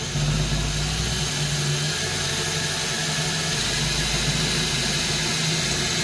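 Cordless drill running steadily under load, boring a 3/16 inch hole at an angle through the black plastic body of a Rain Bird 3/4 inch sprinkler water valve.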